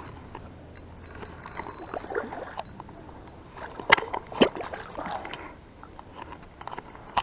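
Water splashing and sloshing as a small hooked pike thrashes at the surface close to the bank, with two sharp knocks about four seconds in.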